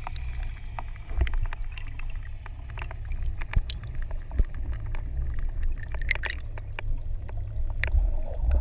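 Underwater sound heard through a camera housing as a freediver fins along: a steady low rush of water with many scattered sharp clicks, and bubbles gurgling near the end.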